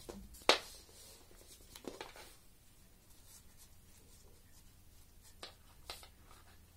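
Hands handling a plastic-wrapped mouse and its braided cable: soft plastic rustling and crinkling. There is a sharp tap about half a second in and two smaller clicks near the end.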